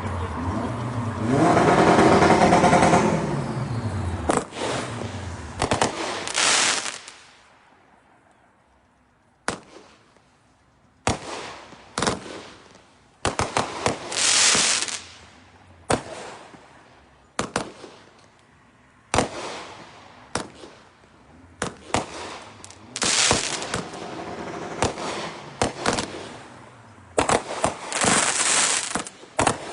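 Five consumer firework cakes fused together, firing: an irregular run of sharp shots, some followed by crackling bursts. The shots break off for a couple of seconds about a third of the way in, then come thick again near the end.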